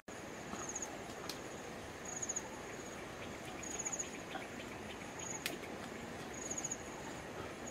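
An insect chirping in short, high-pitched pulsed trills, repeating about every second and a half over a steady outdoor background, with a couple of brief sharp clicks.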